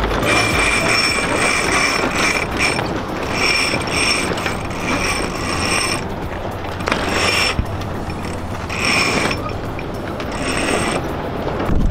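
Sailing yacht's mainsail being hoisted: the halyard running through its blocks and the winch ratcheting, in about five spurts of one to two and a half seconds with short pauses between pulls.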